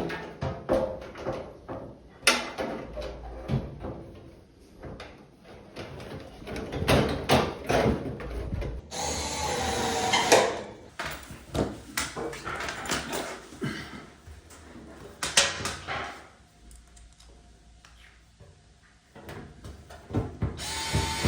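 Repeated clicks and knocks of metal dryer panels and parts being handled, with a small cordless power screwdriver running in two short bursts, once about halfway through and again near the end.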